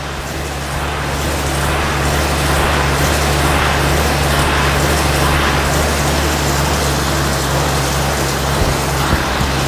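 Air bike being pedalled hard: the fan gives a steady rushing whoosh that builds over the first couple of seconds and then holds at a high pace.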